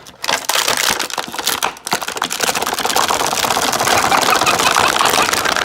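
Plastic and cardboard toy packaging crackling and rattling in a rapid, continuous stream of clicks as an action figure is worked loose from its box, growing denser in the second half and cutting off abruptly.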